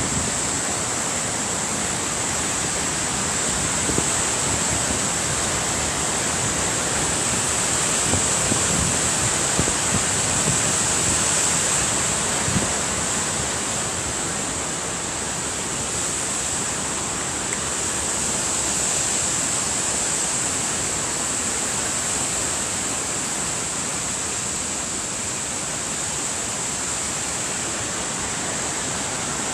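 Steady outdoor rushing noise, like flowing water, with a constant high hiss over it and gentle swells in level.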